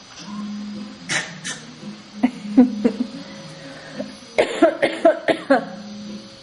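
A baby's fake coughs: short little coughs in three groups, two, then three, then a quick run of about six.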